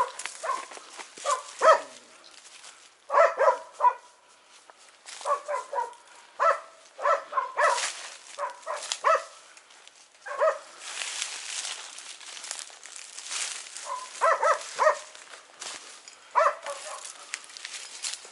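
Laika hunting dogs barking repeatedly in short clusters, with pauses between, during a wild-boar hunt. Between the barks, footsteps crunch and rustle through dry leaf litter and brush.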